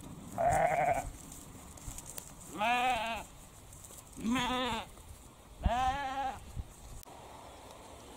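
Sheep bleating four times, a couple of seconds apart. Each call lasts about half a second and quavers in pitch, and the first is higher than the other three.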